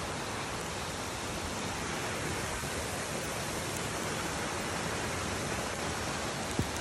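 Steady hiss of falling rain, even and unbroken, with one short thump near the end.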